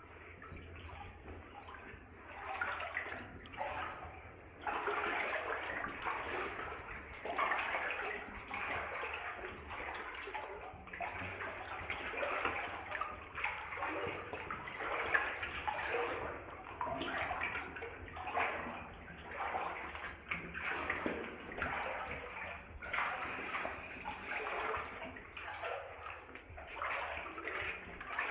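A person in waders wading through water in a narrow flooded rock tunnel, the water sloshing and swirling around the legs in a surge with each stride, about one every second or two.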